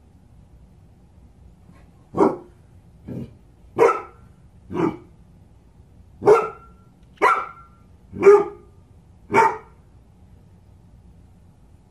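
A dog barks eight times, about one bark a second, starting about two seconds in. The second bark is quieter than the rest.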